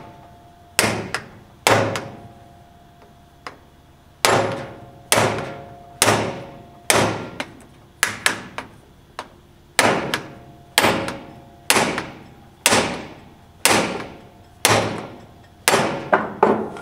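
Hammer blows driving a ball bearing onto an electric motor's shaft through a bearing-fitting sleeve that bears on both the inner and outer rings. Sharp metallic strikes about one a second, each with a brief ring, with a pause of about two seconds after the first two and a quick run of three blows near the end as the bearing seats.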